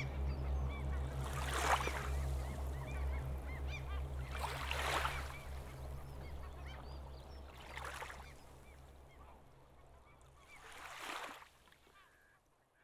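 Electronic ambient soundscape: a steady low drone under a repeated wash of noise that swells and ebbs about every three seconds. The whole piece fades out over its last several seconds.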